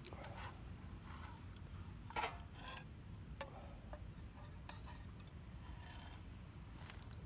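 A few light clinks and scrapes of eating utensils against metal camp cookware, scattered and irregular, the loudest a little over two seconds in.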